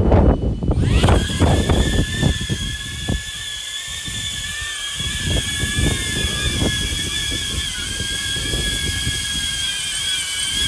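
DJI Avata FPV drone's motors and propellers spinning up about a second in, then holding a steady high-pitched whine at idle before takeoff. Wind buffets the microphone in the first few seconds.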